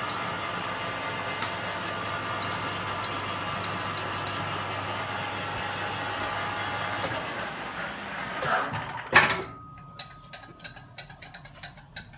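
Metal lathe taking a heavy roughing cut in 316 stainless steel hollow bar at 440 RPM, about 1 mm deep at a fast feed: a steady cutting noise with a whine. About nine seconds in there is a sharp loud knock as the cut ends, followed by a much quieter spell with a faint steady tone and light ticks and clinks.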